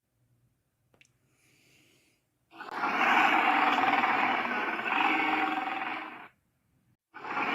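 Sharptooth dinosaur roar sound effect: one long, rough roar of nearly four seconds starting a couple of seconds in, then another roar beginning near the end.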